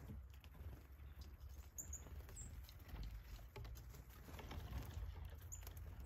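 Northern cardinal feeding at a bird feeder: soft, irregular taps and clicks, with a few very short, high bird chirps about two seconds in and again near the end, over a steady low rumble.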